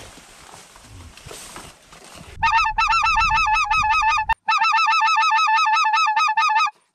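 A low rustle and rumble, then, about two seconds in, geese honking in a fast run of high calls, about five or six a second. The run cuts off sharply twice.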